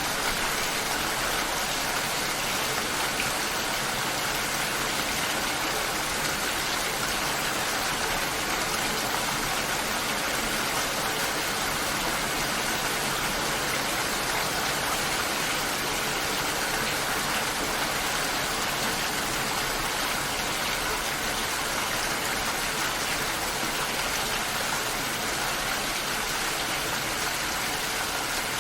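Steady rain falling: an even, unbroken hiss with no thunder and no single drops standing out.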